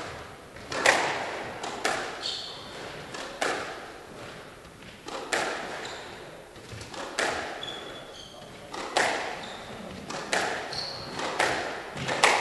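A squash rally: the ball is struck by rackets and hits the walls, sharp cracks roughly once a second, each with a short smear of echo. Between the hits come brief high squeaks of shoes on the wooden court floor.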